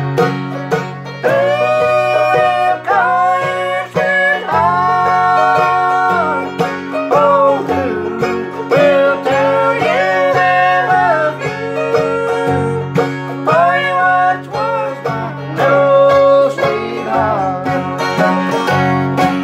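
Acoustic guitar strumming and mandolin picking a bluegrass tune, with held melody notes over steady chords.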